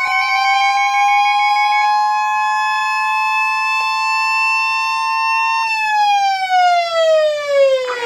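Weather alert radios sounding a severe thunderstorm warning. An electronic siren wails up, holds at one pitch and winds down near the end. Beneath it runs the steady, high NOAA Weather Radio warning alarm tone, which cuts off about two-thirds of the way through. A pulsed beeping from another receiver stops about two seconds in.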